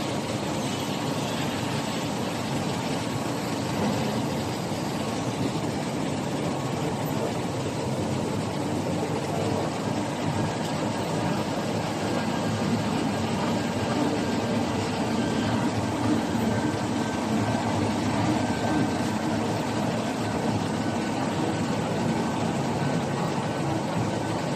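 1000 mm high-speed flexographic printing press running: a steady, dense mechanical drone of rollers and drives with a faint steady whine.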